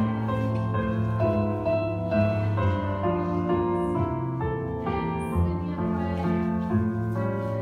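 Instrumental music with piano, playing steadily as a ballet class accompaniment.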